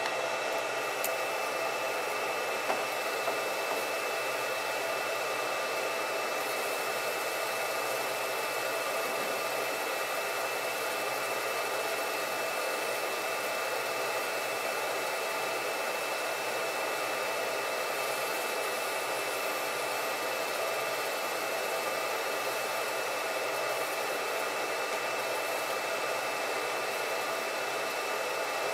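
MarkStar Pro 20-watt Q-switched fiber laser marker running while it marks a barcode: a steady fan-like hiss with a few faint, even whining tones over it.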